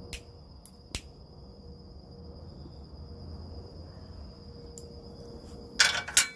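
Crickets trilling steadily in one high unbroken tone. Over it come a few sharp clicks and, about six seconds in, a louder rattling burst from lighting and puffing a tobacco pipe.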